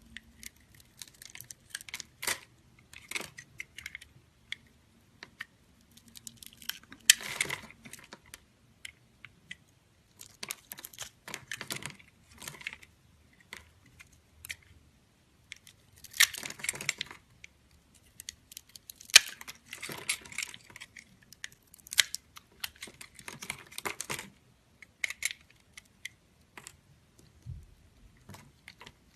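A bar of soap being cut, crisp crunching and crackling, in irregular bursts of sharp clicks with short pauses between them.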